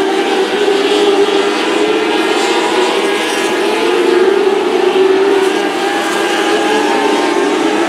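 Engines of small winged sprint cars running hard at high revs as they race close together, their steady pitch wavering slightly up and down.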